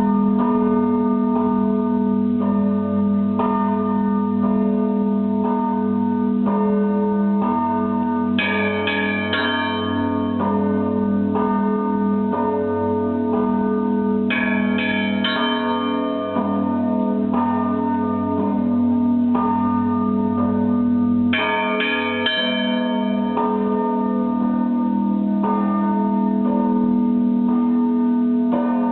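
Russian Orthodox monastery bells pealing: a deep, lingering bell hum under a steady, quick pattern of strikes on smaller bells, with a cluster of high bells joining in about every six to seven seconds.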